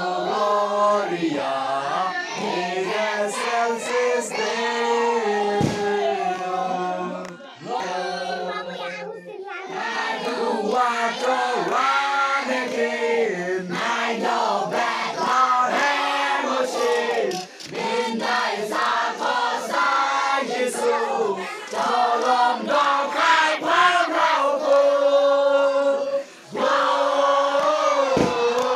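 A group of carol singers singing a Christmas carol together, with a few short pauses between lines.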